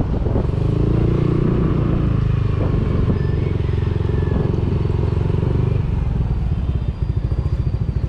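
Yamaha scooter engine running as it rolls slowly along a street, then dropping to a pulsing idle about seven seconds in as the scooter comes to a stop.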